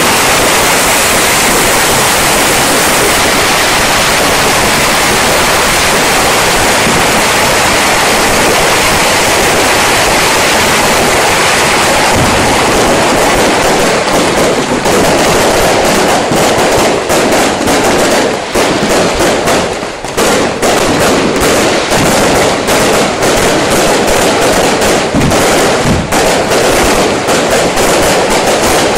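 A long string of firecrackers going off in a dense, continuous crackle. From about halfway the bangs break into more separate cracks, with a brief lull a few seconds later.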